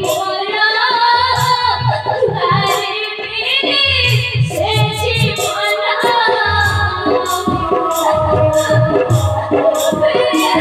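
A song sung live on stage, the voice gliding through an ornamented melody over clusters of low hand-drum strokes and regular jingling percussion strikes keeping the beat.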